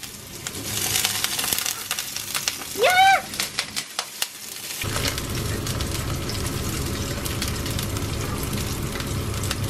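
Sliced sausage sizzling and crackling in oil in a non-stick frying pan, with a brief rising vocal sound about three seconds in. The sizzle drops away for a moment around four seconds, then goes on steadily.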